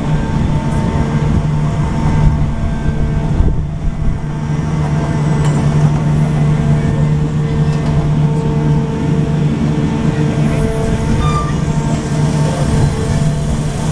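The engine and machinery of the Great Elephant, a giant walking mechanical elephant, running with a steady low drone.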